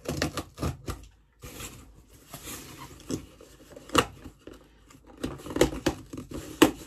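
Packing tape on a cardboard box being cut and worked open with scissors: a string of sharp clicks, taps and scrapes with cardboard rustle. The loudest knock comes about four seconds in, and a quick run of clicks comes near the end.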